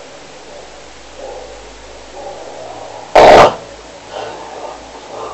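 A person snoring, with quieter rasping breaths at intervals and one very loud, short snore about three seconds in that overloads the recording.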